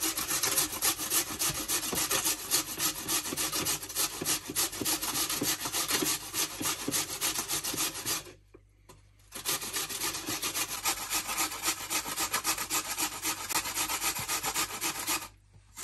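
Raw peeled potato being grated on a stainless steel grater: rapid, even rasping strokes, with a short pause about eight seconds in and a stop shortly before the end.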